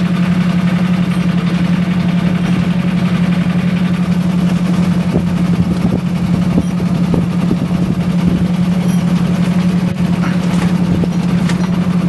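A boat's inboard engine running steadily with an even low drone.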